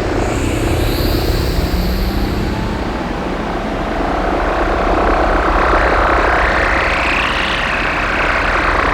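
Roland System-8 synthesizer playing a dense drone of filtered noise, rumbling low underneath. From about four seconds in, a band of hiss swells and rises, peaking near the end.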